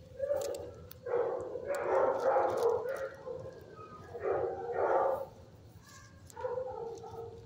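Dogs in shelter kennels barking and whining in several drawn-out, pitched bursts.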